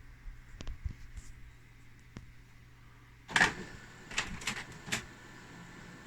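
Canon colour laser printer starting up: a few faint clicks, then about three seconds in a knock and several clacks as the mechanism engages, followed by a steady motor whir. The drive gears in its toner cartridges are freshly greased, and it runs without squealing.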